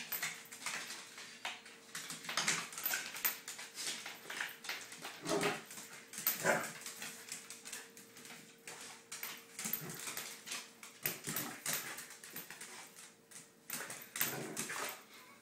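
A corgi scrabbling and dancing on a tile floor, its claws clicking irregularly on the tiles, with a few short dog vocal sounds mixed in. A faint steady hum runs under it.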